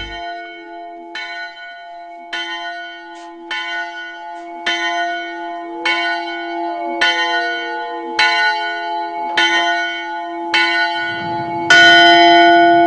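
Bell hung in a wooden frame, rung by its rope: about ten slow, even strokes, roughly one a second, each ringing on into the next. The last stroke near the end is the loudest.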